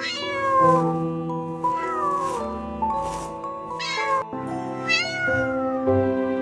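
Cat meowing about four times, each call falling in pitch, over background music with steady held notes.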